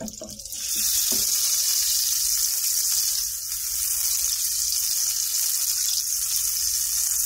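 Olive oil and butter sizzling in a hot skillet as the butter melts. The sizzle starts suddenly under a second in and then carries on as a steady hiss.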